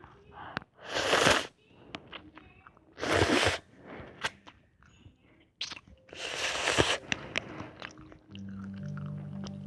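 Ramen noodles being slurped three times in loud, noisy pulls of under a second each, with wet chewing clicks between them. A low steady tone comes in near the end.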